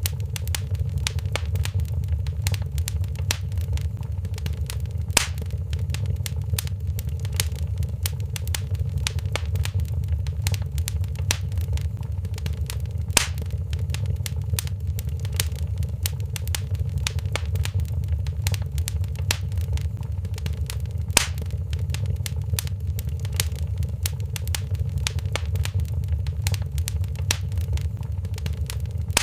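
Wood fire crackling in a fireplace: a steady low rumble under a constant patter of small crackles, with three louder pops spread through.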